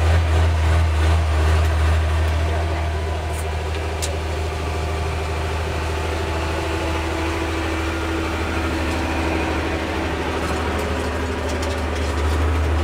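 Corn combine harvester's diesel engine and machinery running steadily, heard from the cab as a deep, even drone.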